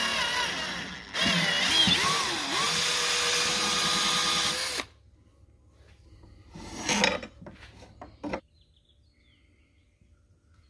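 Electric hand drill with a 3/8-inch bit running as it bores through 1-inch PVC pipe. It eases off briefly about a second in, then runs again with its pitch wavering under load and cuts off suddenly near the five-second mark. A clatter and a short knock follow.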